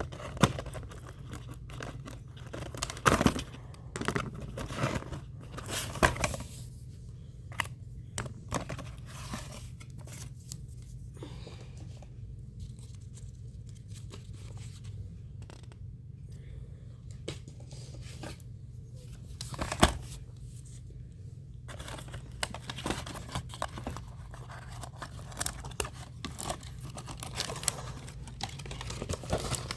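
Toy packaging being opened by hand: cardboard and plastic tearing and crinkling in irregular bursts, with sharp snaps, the loudest about 20 seconds in. A steady low hum sits underneath.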